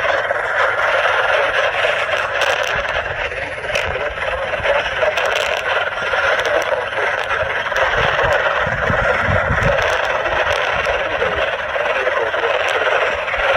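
Radio static hissing steadily from a receiver's small speaker, with scattered crackling clicks and a low rumble about eight to ten seconds in.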